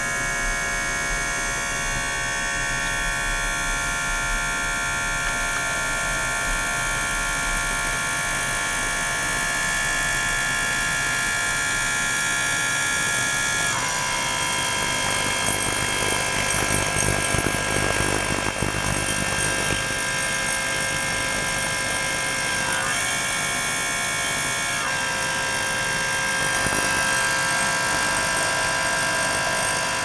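Small electric gear pump circulating water through an ultrasonic cleaner bath with the cleaner running: a steady electric buzz made of several held tones. The tones shift in pitch a little before halfway and twice more later on, and the sound turns rougher and noisier for several seconds in the middle.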